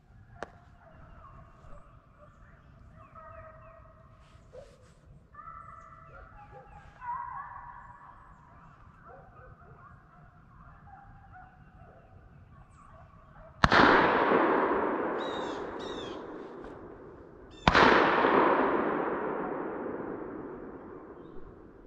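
Hounds baying in the distance as they run a deer, then two loud gunshots about four seconds apart, each echoing away over several seconds.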